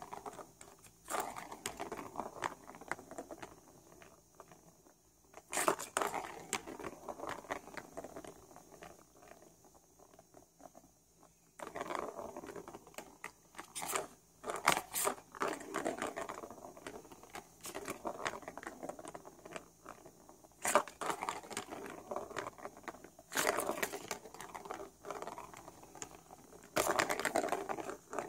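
Small ball rolling round a plastic figure-eight cat track toy, in spells of a few seconds with quieter gaps between. Sharp knocks come now and then as the ball is batted and hits the track walls.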